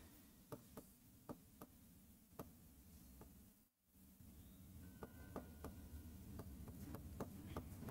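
Near silence with the faint taps and ticks of a marker writing on a whiteboard: a few scattered taps at first, then quicker ticking in the second half as words are written, with a brief faint squeak of the marker tip about five seconds in.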